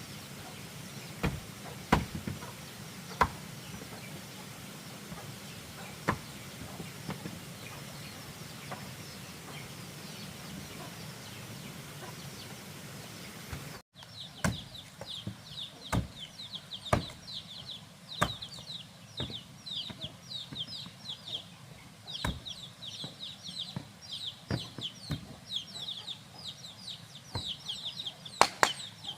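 For the first half, a steady hiss with a few sharp knocks. After a sudden cut about halfway, chickens chirp rapidly and continuously in high, short, falling peeps, with occasional knocks.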